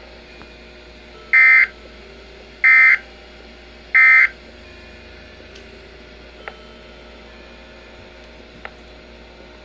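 Three short bursts of warbling digital data tones, about a second apart, coming through a Midland weather radio's speaker from the Environment Canada Weatheradio broadcast. They match the SAME end-of-message code that closes an alert transmission. A faint steady hum lies between them.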